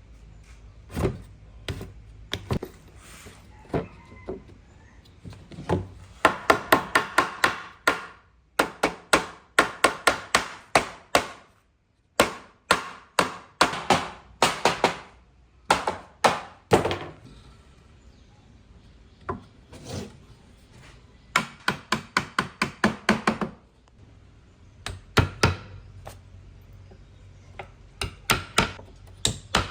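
Hammering on wood: runs of quick, sharp blows, about four to five a second at their fastest, broken by short pauses between runs.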